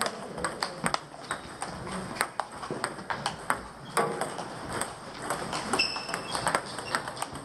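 Irregular sharp clicks and taps with faint voices in the background, and a short electronic beep just before six seconds in.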